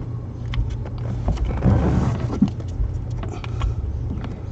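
Scattered small clicks and knocks of hand tools and hard plastic parts being worked under a car's dash, with a louder scraping rustle about two seconds in, over a steady low hum.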